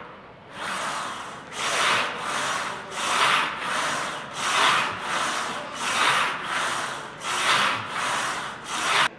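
A man breathing hard and fast in rhythm while pushing out Smith machine presses against resistance bands: a steady run of rasping breaths, about one and a half a second, that stops suddenly near the end.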